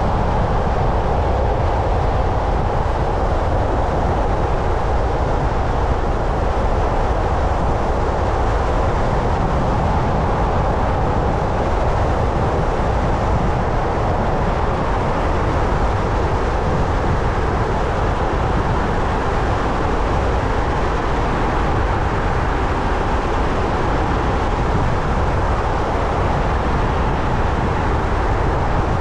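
Steady rumble and hiss of a car driving along a road, tyre and engine noise that stays even throughout.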